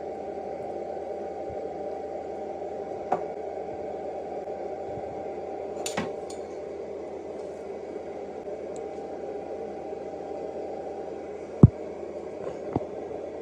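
Steady hum with a few sharp knocks and clinks of kitchenware over it, the loudest knock near the end.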